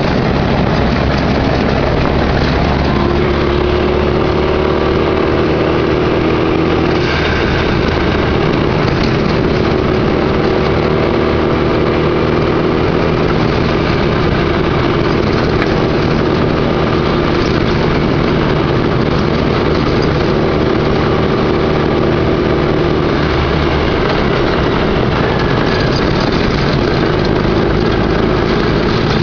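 Off-road vehicle's engine running under load while driving over rough ground, its pitch stepping up and down several times as speed changes, over a constant rushing noise.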